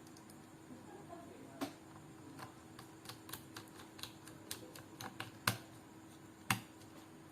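Irregular light clicks and taps, the loudest two about five and a half and six and a half seconds in, from handling the plastic bottom casing of an Asus VivoBook 14 laptop and its screws as it is put back together.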